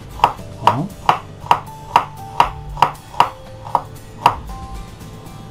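Kitchen knife chopping a garlic clove on a bamboo cutting board: sharp knocks of the blade on the board, about two to three a second, stopping about four seconds in.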